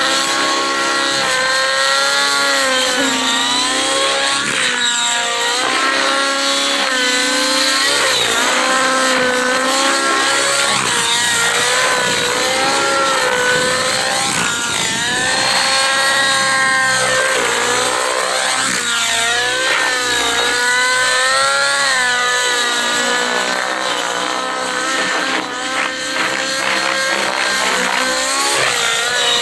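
Nitro RC helicopter (Rave ENV 90) running in flight: its two-stroke glow engine and rotor keep a loud, high, steady note. The pitch dips and climbs back several times as it is thrown through aerobatic manoeuvres.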